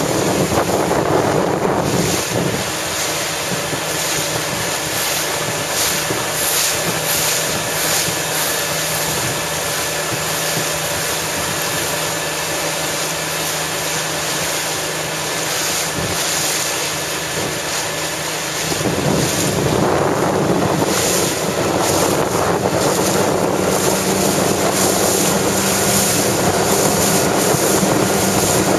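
Wind buffeting the microphone over choppy water, with the steady hum of a boat engine underneath. It gets louder and fuller about two-thirds of the way in.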